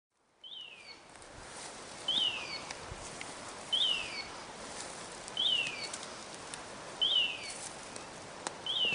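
A high whistled call, sliding downward in pitch, repeated at an even pace about every one and a half seconds over steady outdoor background noise.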